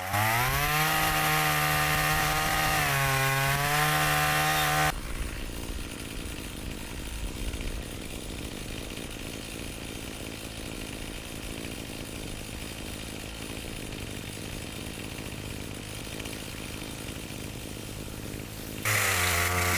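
Chainsaw running at high revs for about five seconds, its pitch stepping slightly as it cuts, then stopping abruptly. A quieter, rough, untoned noise follows, and a loud pitched sound comes back near the end.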